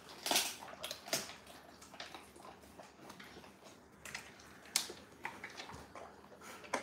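Golden retriever licking its chops and chewing, with a handful of irregular sharp clicks and smacks.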